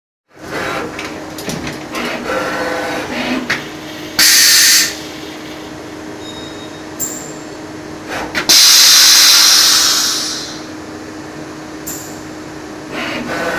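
CNC lathe running with a steady hum and scattered clicks, broken by a short loud burst of hiss about four seconds in and a longer loud hiss at about eight and a half seconds that fades away over two seconds.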